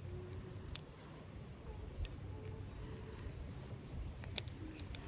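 Faint handling noises of fishing line and tackle being worked while tying a knot, with scattered small clicks and a quick cluster of sharp ticks near the end.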